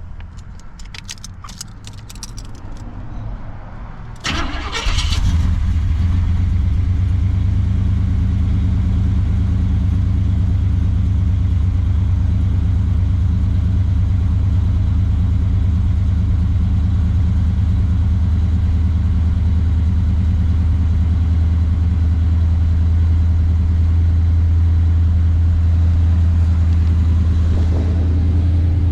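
Car engine with a freshly reinstalled Holley-style four-barrel carburetor being started: a few seconds of quieter cranking, then it fires with a burst about four seconds in and settles into a steady idle. This is the first start after a power valve replacement, with the float bowls just filled.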